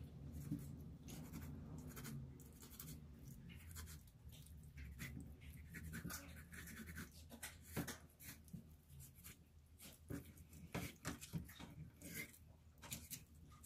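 Faint knife work on raw mullet: short scrapes and taps of a blade cutting fish flesh from the bones on a board, coming more often in the second half.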